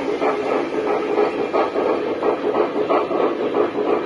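O-scale model steam train running on three-rail track: a steady rumble of wheels on the rails, with a rhythmic beat about three times a second.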